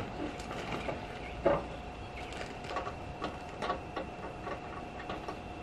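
Irregular light clicks and clinks of hand tools such as spanners being handled and worked on bolts, with one louder knock about a second and a half in, over a faint steady hum.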